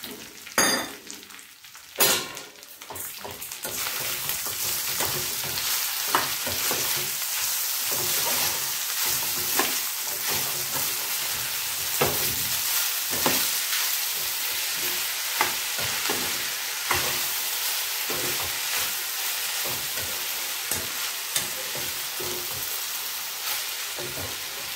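A steel spoon stirs and scrapes sweet rice in a steel kadhai, clinking against the pan many times, with a steady sizzle from about four seconds in as the sugar melts into the hot ghee. A couple of sharp knocks come in the first two seconds.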